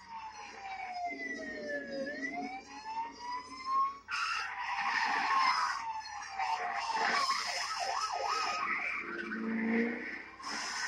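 Police car sirens wailing in a film car-chase soundtrack, heard through a TV speaker: the pitch falls for about two seconds and rises again, then about four seconds in a louder, noisier rush of car-chase sound with engines and tyres takes over, the sirens still gliding underneath.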